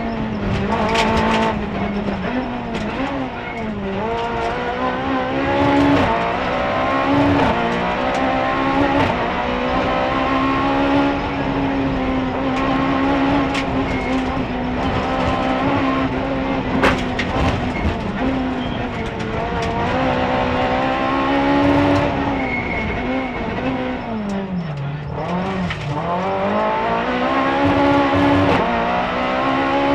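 Rally car engine heard from inside the cabin at stage pace, revs climbing and dropping repeatedly through gear changes and corners. About three-quarters of the way through the revs fall away deeply under braking, then climb again. Sharp clicks and knocks come through now and then.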